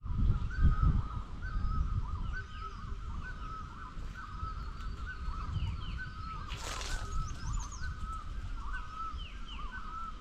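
Many birds calling at once in a dense chorus of short, quick, overlapping chirps. A low rumble of wind on the microphone sits under them, strongest in the first two seconds, and a brief hiss comes about seven seconds in.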